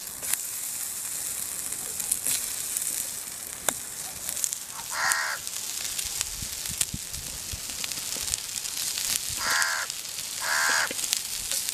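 Masala-coated catfish steaks sizzling on a hot iron griddle over a wood fire, a steady hiss with small clicks. A crow caws three times, once about five seconds in and twice near the end.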